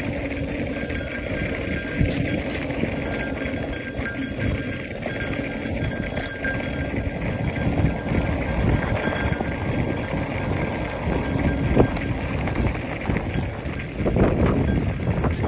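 Mountain bike riding over a dirt singletrack: knobby tyres rolling on the dirt and the bike rattling and clattering with many small knocks over the bumps, somewhat louder near the end.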